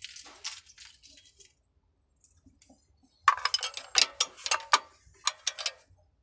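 Small metal pieces clinking and rattling in a quick, busy cluster of sharp knocks, after a faint rustle.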